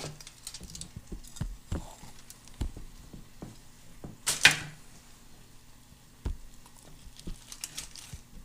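Kitchen handling noises: scattered light clicks and knocks, with one louder short scrape or rustle about four and a half seconds in, over a faint steady low hum.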